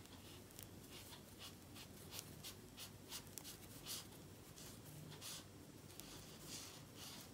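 Faint, irregular scratching and rustling of a fine 1.3 mm metal crochet hook drawing mercerized cotton thread through stitches, in many short strokes.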